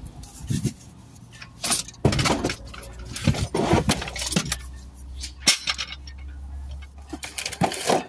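Gloves and tools being grabbed and handled close to the microphone inside the truck cab: irregular clinks, knocks and rustles, some sharp and loud, over a low steady hum.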